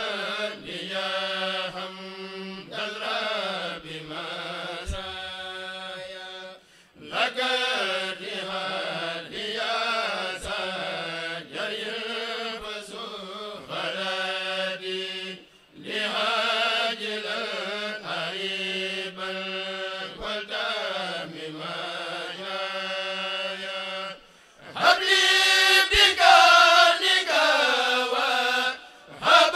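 A kurel of men's voices chanting a khassida, Mouride devotional verse in Arabic, unaccompanied and sung in long melodic phrases with short breaths between them. The chant grows louder near the end.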